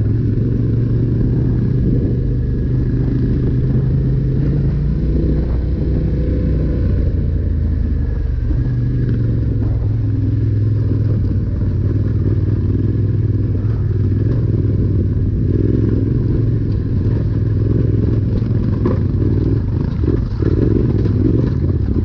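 Yamaha Ténéré 700's parallel-twin engine running through a Yoshimura slip-on exhaust as the bike rides a rough gravel trail, at steady moderate revs. The engine note drops a little about four seconds in and rises again around eight seconds, with throttle changes.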